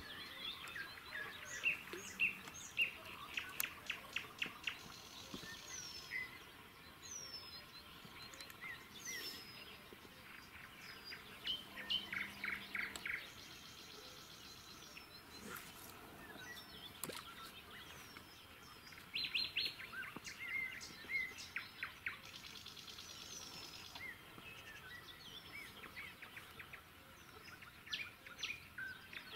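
Songbirds singing in a spring dawn chorus: bursts of quick repeated chirps and trills, with high whistles that slide down in pitch every few seconds, over a faint outdoor hush.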